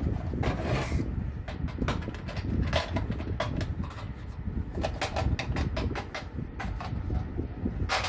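Plastic toys being handled: irregular light clicks and knocks over a steady low rumble.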